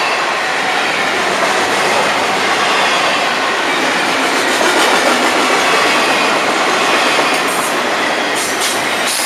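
Double-stack intermodal well cars of a long freight train rolling past close by: a steady, loud rumble and rattle of steel wheels on rail, with a few short, high-pitched squeaks near the end.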